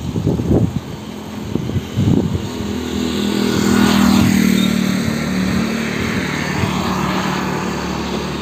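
A motor vehicle engine running steadily. It comes in a couple of seconds in, is loudest around four seconds in, then eases slightly.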